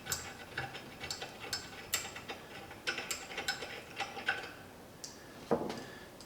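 Light, irregular metallic ticks and clicks as a 3/8-16 tap is unscrewed by hand from a freshly chased threaded hole, with a brief scrape near the end.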